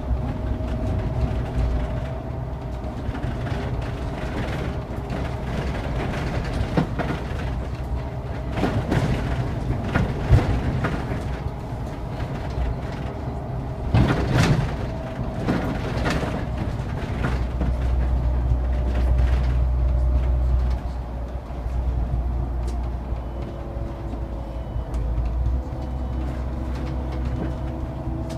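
City bus driving at speed, heard inside the bus: a steady low engine and road rumble with a faint hum, and a run of knocks and rattles near the middle.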